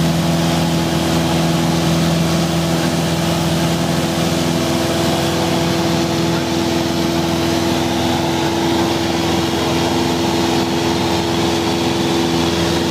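Engine and propeller of a light single-engine plane in flight, heard from inside the cabin: a loud, steady drone with a constant rush of air. About four seconds in, the lowest tone of the drone fades while the overall level holds steady.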